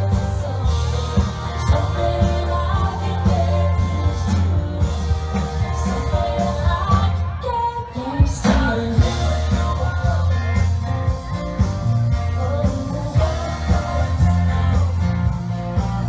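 Background music: a song with singing over a heavy bass line.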